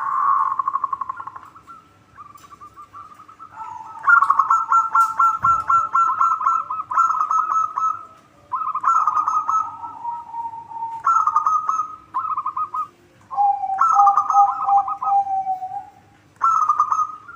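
Zebra doves (perkutut) cooing in fast trilling phrases, each lasting one to two seconds with short gaps between, sometimes over a lower held coo.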